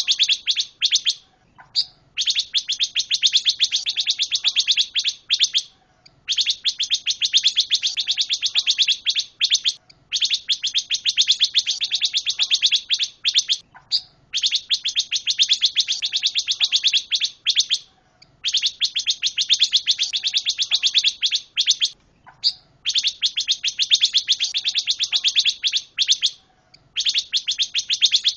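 A pancawarna songbird singing hard: bursts of rapid, high chattering notes, each three to four seconds long, repeating again and again with short pauses between them.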